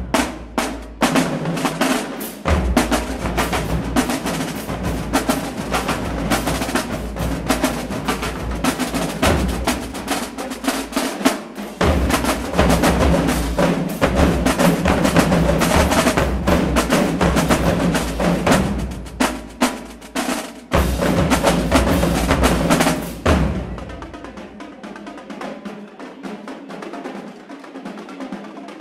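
Marching drumline of snare drums and bass drums playing a loud, dense cadence, with rolls over pounding bass drum hits. A little before the end the full line cuts off sharply and the sound falls much quieter.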